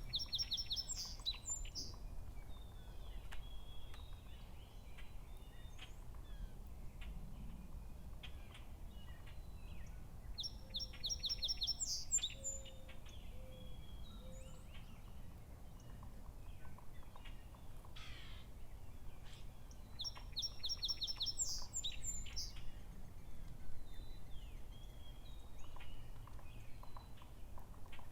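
A songbird singing the same short song three times, about every ten seconds: a quick run of high repeated notes ending in a higher flourish. Fainter chirps from other birds come in between, over a low steady rumble.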